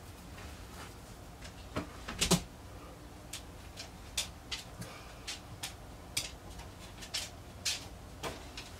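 A string of light, sharp clicks or taps at irregular intervals, roughly one or two a second, with a louder double click about two seconds in.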